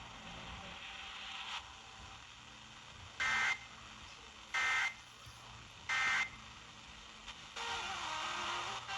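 Emergency Alert System end-of-message data bursts: three short, shrill digital warbling buzzes about 1.3 seconds apart, signalling the close of the weather alert, over a low radio hiss. A louder hiss comes in near the end.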